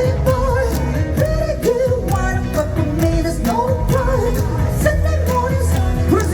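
Live pop-rock song through a concert sound system: a male singer's voice over a band with heavy bass and drums.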